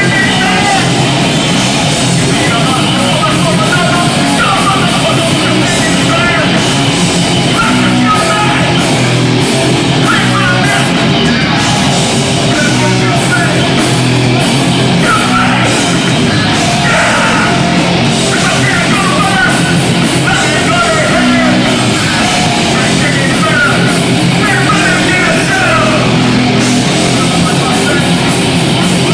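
Hardcore punk band playing live, loud and continuous, with distorted guitars, bass and drums and a shouted vocal.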